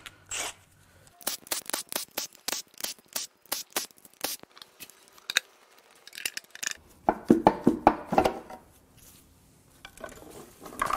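Hand work on a bare aluminium V6 cylinder head: a quick run of light metal clicks, then a cluster of louder clinks and knocks about seven seconds in, as loosened valve cover bolts and tools are handled.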